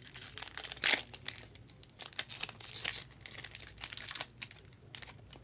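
Foil trading-card pack wrapper crinkling and crackling as it is handled and torn open, with its loudest crackle about a second in.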